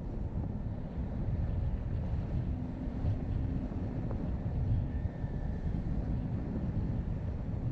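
Car driving up a winding mountain road, heard as a steady low rumble of wind buffeting the microphone over road and engine noise.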